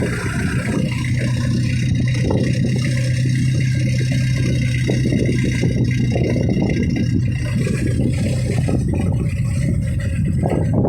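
Fishing boat engine running steadily at a constant speed, with the rough wash of water and wind over it.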